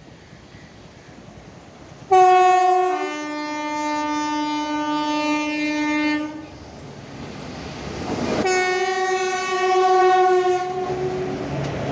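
Electric freight locomotive horn sounding two long blasts; the first drops in pitch partway through. Under the second, the rumble of the approaching train grows louder.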